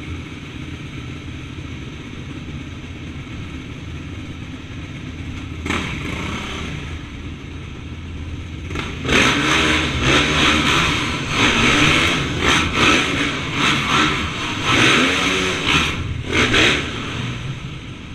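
Dirt bike engines idling, then revved hard in a run of repeated throttle bursts from about nine seconds in as the bikes ride across a concrete floor.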